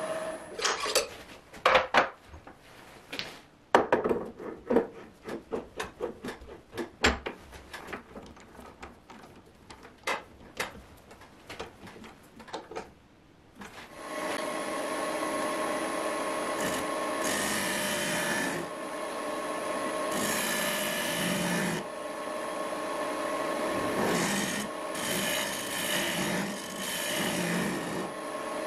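A wood lathe handled and set up, with a string of sharp knocks and clicks, then about halfway through it starts and runs with a steady hum. A gouge cuts the spinning wooden blank in repeated passes, each pass a scraping, rasping cut.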